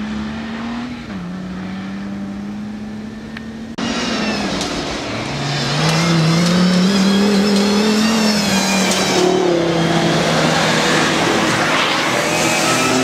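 Modified off-road 4x4 engines: first a steady engine note, then, after a sudden change about four seconds in, a louder engine revving up, rising in pitch over a few seconds and then holding high as a jeep drives up the dirt track under load.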